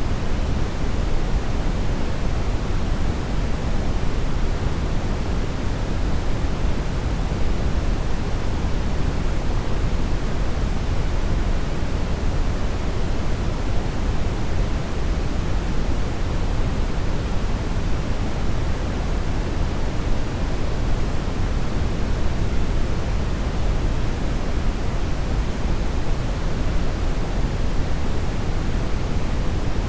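Steady brown noise: a continuous deep hiss with most of its weight in the low end, unchanging throughout.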